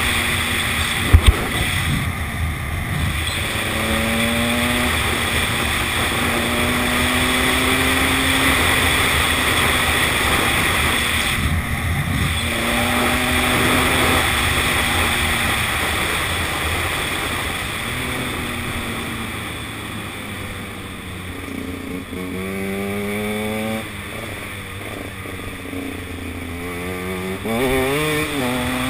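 Two-stroke enduro motorcycle being ridden at speed. The engine note climbs and drops several times, as at gear changes, over a steady wind rush on a helmet-mounted camera. There are two sharp knocks about a second in, and near the end the engine pitch rises and falls quickly several times.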